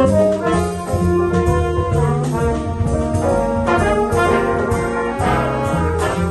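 Live jazz band playing, with brass instruments to the fore over a moving bass line.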